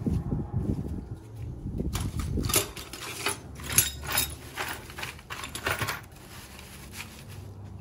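Loose metal tools and small hardware clinking and clattering in a steel toolbox drawer as a gloved hand rummages through them, in a run of clinks from about two to six seconds in.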